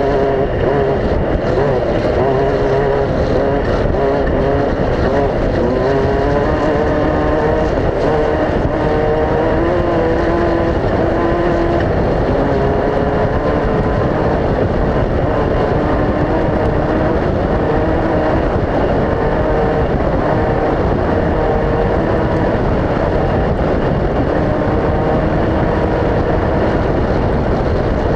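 Off-road desert race vehicle engines running, a loud continuous drone whose pitch wavers up and down without a break.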